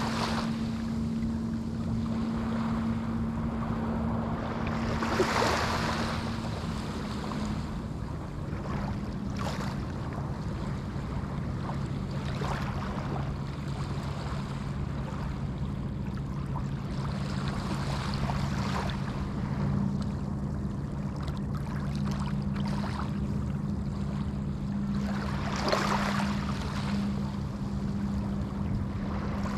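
Small Atlantic waves breaking on a sandy beach, a surge of surf every five to seven seconds over a steady wash. A low steady drone runs underneath and changes pitch about eight seconds in.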